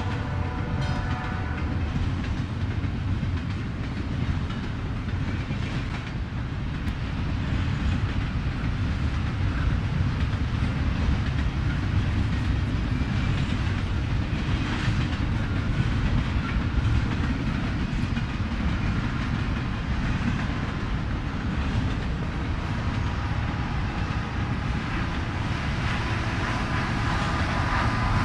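Freight train rolling past, a steady low rumble of railcar wheels on the rails with some clickety-clack. A train horn chord fades out in the first second or so.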